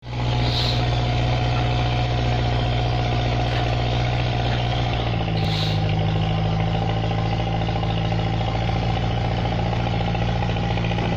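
Excavator diesel engine idling steadily; its note steps up slightly about five seconds in.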